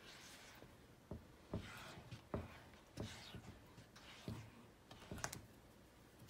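Silicone spatula stirring flour-and-water batter in a metal saucepan: faint scraping swishes with light knocks against the pan about once or twice a second.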